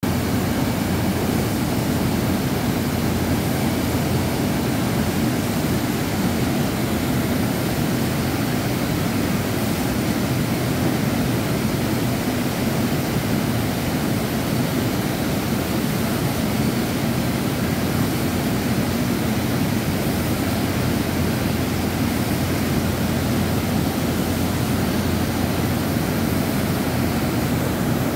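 Steady, even machinery noise of a bottling plant's production hall, with its conveyor lines and packing machines running; no single knock or clank stands out.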